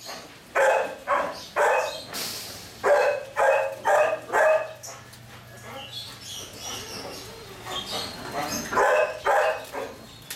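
Belgian Malinois puppies barking in quick yaps, about two a second, in three runs of three or four, with a lull in the middle.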